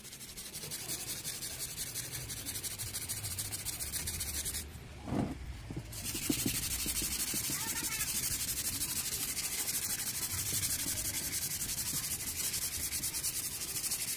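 Sandpaper rubbed by hand back and forth over a plastic car headlight lens to cut away the yellowed, stained surface. The scraping strokes are rapid and even, stop for about a second around five seconds in, then resume louder.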